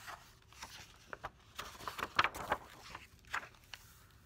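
Pages of a large hardcover picture book being turned and handled: paper rustling with several sharp taps, loudest about two seconds in.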